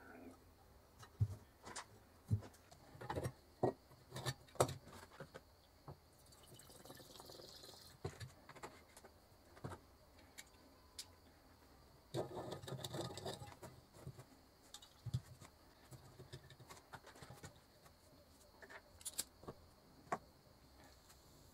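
Glass and metal parts of an antique oil lamp handled on a workbench: scattered light clicks and knocks, with a brief rubbing noise about twelve seconds in.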